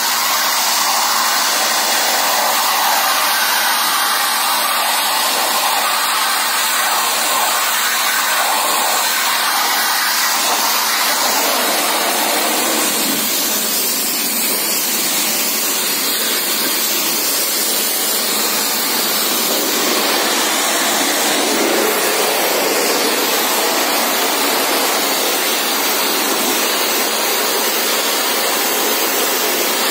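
Pressure washer running, its water jet hissing steadily against a tractor radiator's fins to flush dirt out of the core. The sound changes somewhat partway through, then settles back to the same steady hiss.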